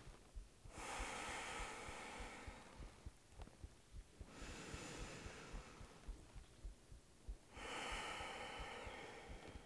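A woman's slow, audible breaths, three in all, each about a second and a half long with quiet pauses between them, paced to a yoga arm sequence.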